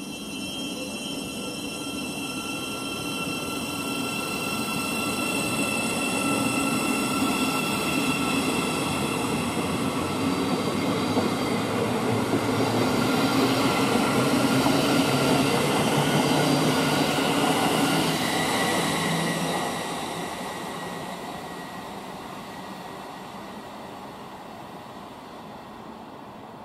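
Thameslink Class 700 Desiro City electric multiple unit running past the platform: a steady electric whine of several tones over wheel-on-rail rumble. It grows louder, drops sharply about twenty seconds in, then fades away.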